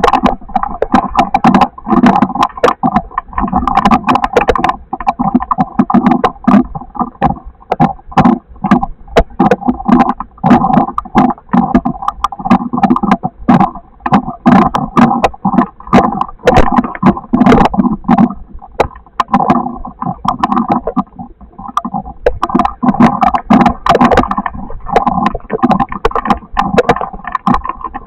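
Storm precipitation pelting a hard, resonant surface in dense, irregular hits, loud and without let-up.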